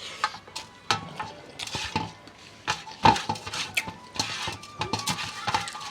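Irregular clinks and knocks of dishes and utensils during a meal.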